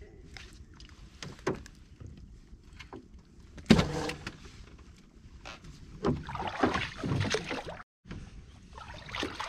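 Handling noise on a small fishing boat: irregular knocks and bumps, with a sharp, loud knock about four seconds in. A longer stretch of rustling and knocking follows from about six seconds in and cuts out abruptly for a moment near the end.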